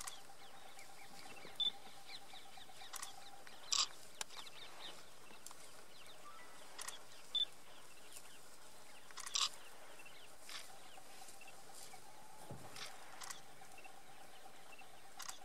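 Quiet outdoor ambience: a faint steady hum, with about half a dozen short sharp clicks and a couple of brief high chirps scattered through it.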